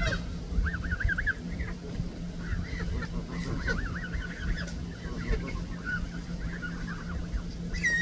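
Canada geese calling, short rising-and-falling calls in quick runs one after another, over a steady low hum.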